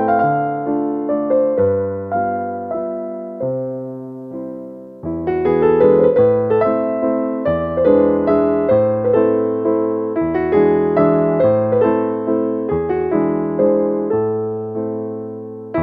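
Background music: a gentle piano melody over chords, note after note fading as it rings, thinning out briefly about four seconds in before resuming fuller.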